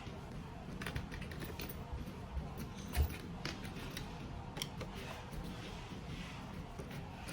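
Small clicks and taps of a T10 Torx screwdriver and small screws being handled while the fusion splicer's outer cover is unscrewed, with one soft thump about three seconds in.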